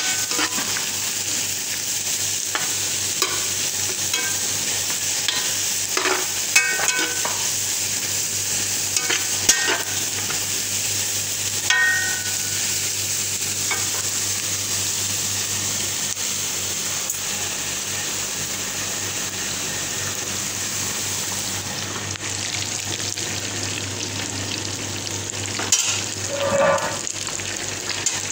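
Sliced onions, garlic and ginger sizzling in oil in a nonstick frying pan, with a spatula scraping and knocking against the pan every few seconds as they are stirred. Later the sizzle is that of fish steaks frying in oil.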